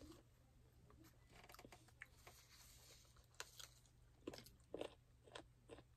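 Quiet eating sounds: chewing and soft mouth clicks of people eating chicken roll and biryani, with several short sharp clicks in the second half.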